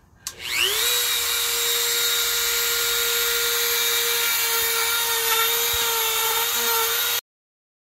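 Dremel rotary grinding tool switched on with a click, spinning up into a steady high whine as it carves wood, its pitch wavering slightly under load. The sound cuts off suddenly near the end.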